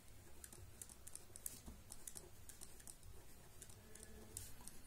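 Faint scratching and ticking of a pen writing on paper, in short irregular strokes, over a low hum.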